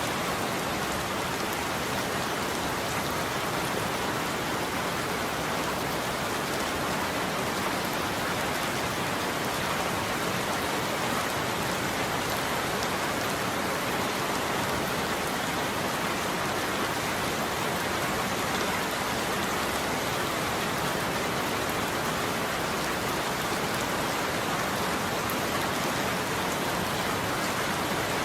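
Steady heavy rain falling on a roof: an even, dense hiss of countless drops that holds at the same level throughout.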